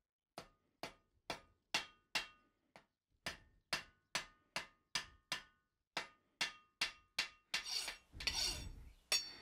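Hammer blows on red-hot steel clamped in a vise, about two a second with a short pause after the first few, each strike ringing briefly. Near the end the strikes give way to a short, rougher and noisier stretch.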